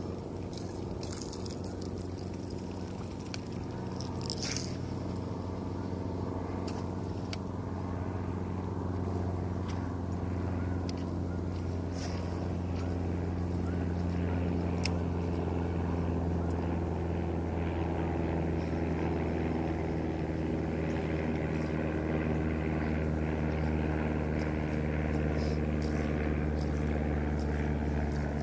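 Boat engine running steadily, growing a little louder over the first half, with a few scattered clicks and scrapes.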